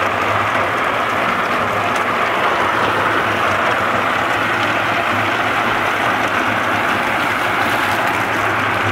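Meltem C-120 walnut hulling machine running: its electric motor and gear reducer turn the drum paddles, and green-husked walnuts churn against the grated drum wall under a water spray. The result is a steady churning noise over a low motor hum.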